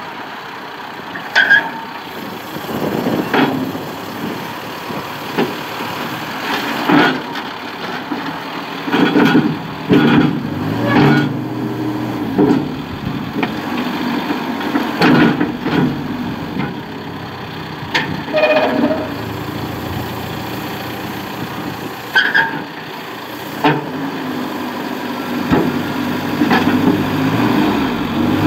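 John Deere 310SK backhoe loader's diesel engine running, its pitch rising and falling repeatedly as it is loaded, with frequent sharp metallic clanks and knocks from the machine working.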